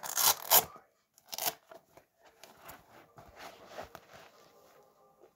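Rustling and scuffing as shoes are pulled on, with a couple of sharp tearing scrapes in the first second and a half, then softer shuffling.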